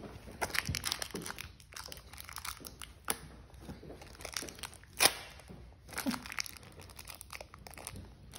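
Plastic wrapper of an individually wrapped cheese slice crinkling as it is peeled open by hand, in a run of irregular crackles with a sharper one about five seconds in.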